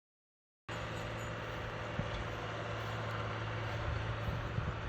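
Silence, then under a second in a steady low mechanical hum with a broad background rush starts abruptly and runs on evenly.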